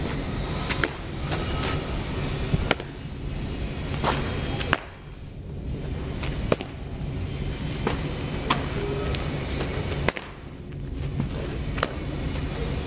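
A baseball smacking into leather gloves as it is caught during a game of catch: sharp pops about every two seconds, over a steady low hum.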